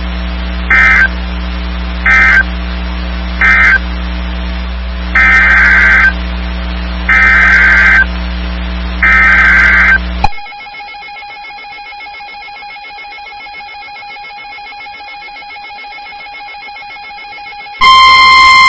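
NOAA Weather Radio SAME digital data bursts, buzzy warbling chirps over a low hum. Three short bursts, the end-of-message code, are followed by three bursts of about a second each, the header of the next alert. About ten seconds in the sound cuts to a quieter steady tone, and near the end the loud, steady 1050 Hz NWR warning alarm tone begins.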